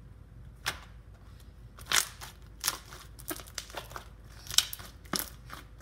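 Homemade slime, still a little sticky, being squeezed and stretched by hand, giving scattered sharp clicks and pops, the loudest about two seconds in and again past the middle.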